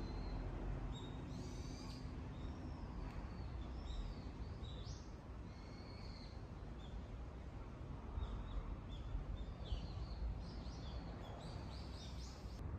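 Small birds calling in the trees: many short, high chirps and whistles, some with quick falling or rising glides, coming more often in the second half, over a low steady background rumble.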